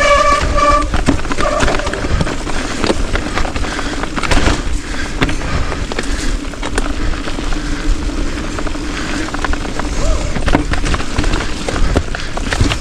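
Bicycle rolling fast over a rough, rocky trail: steady tyre rumble with constant rattling and many sharp knocks, over a low steady hum, and a short pitched squeal at the very start.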